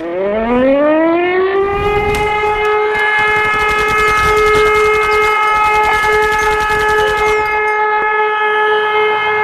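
Air-raid siren winding up, its pitch rising over about a second and a half, then holding one steady tone. A dense crackle of clicks runs over it through the middle.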